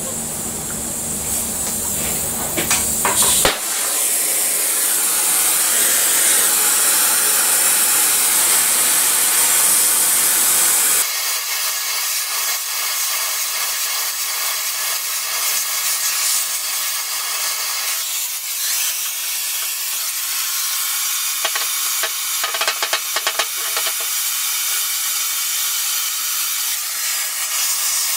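Gas torch flame hissing steadily as it heats a cast-steel tow jaw for flame straightening, with a few clicks about three seconds in. The hiss changes abruptly about eleven seconds in and then carries on.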